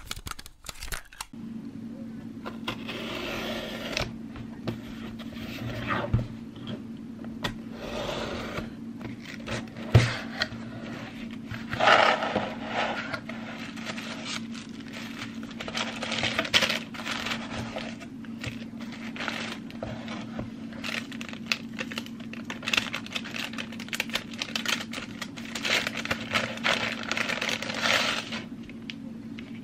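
Hands unpacking a traveler's notebook set on a wooden table. Cardboard and paper packaging rustles, slides and scrapes, with small clicks and a couple of knocks against the table, over a steady low hum.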